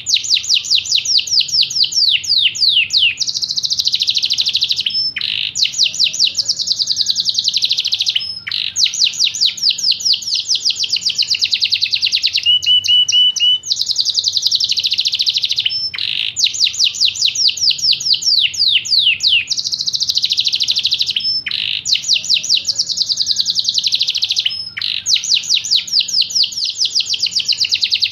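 Yorkshire canary singing a continuous song of rapid trills and rolls of sweeping high notes, with brief pauses every few seconds.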